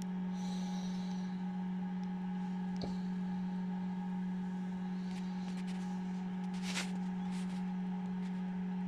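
Steady low hum of a running egg incubator, with a few faint clicks inside it.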